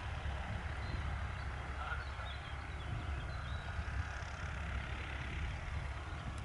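Cessna 150's four-cylinder Continental O-200 engine and propeller running steadily at low power as the plane taxis, heard from a distance as a low, fluttering drone.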